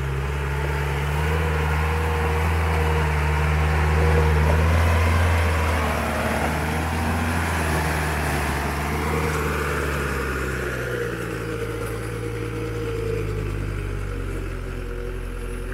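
Old four-wheel-drive jeep's engine labouring under load as it crawls up a steep rock slope, its note holding steady and shifting in pitch a few times, loudest about four to five seconds in.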